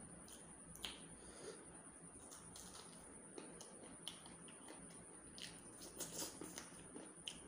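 Faint eating sounds of a man eating chicken curry and rice with his hand: scattered wet lip smacks and chewing clicks as he bites meat from a chicken bone.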